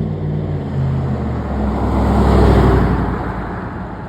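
A car passing close by on the street. Its engine note falls in pitch, and the rush of the car and its tyres builds to a peak about two and a half seconds in, then fades as it goes away.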